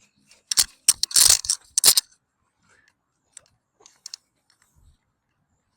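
A quick cluster of loud rustling, crunching noises over about a second and a half, then a few faint ticks.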